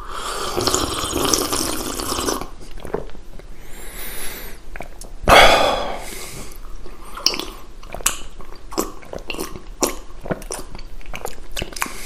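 A person drinking: wet mouth sounds, sips and swallowing gulps with many small clicks, starting with a dense noisy stretch of about two seconds; the loudest sound comes a little past five seconds in.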